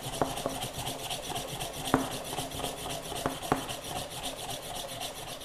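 Manual plunger milk frother being pumped quickly up and down, its mesh plunger whipping milk into foam in a stainless steel pitcher: a fast, even run of strokes with a few sharper clicks of the plunger.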